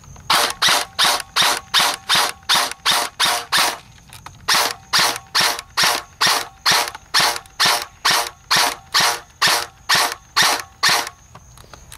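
JG M16A2 airsoft electric gun firing a long string of single shots, about three a second, each a short sharp crack. There is a pause of about a second near the four-second mark.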